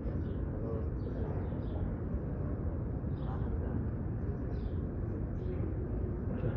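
Steady murmur of a large indoor crowd of worshippers over a continuous low hum of ceiling fans and air conditioning, with faint high chirps scattered throughout.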